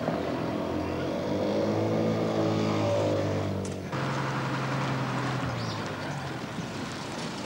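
Bus engine running on the road, its note rising and falling for the first few seconds, a brief dip just before four seconds in, then running steadier.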